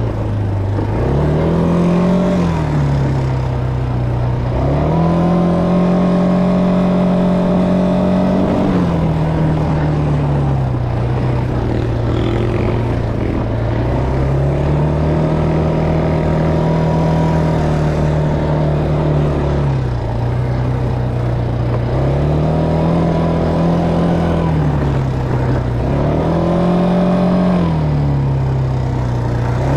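Quad bike (ATV) engine running under way on a dirt trail, its pitch climbing and dropping several times as the throttle is opened and eased.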